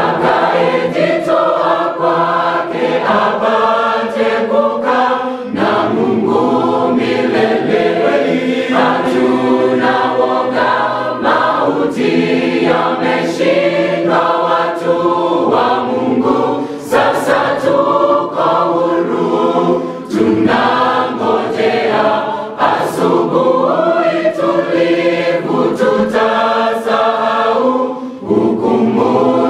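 Mixed-voice choir of men and women singing a Swahili gospel song together in harmony, phrase after phrase with brief breaths between.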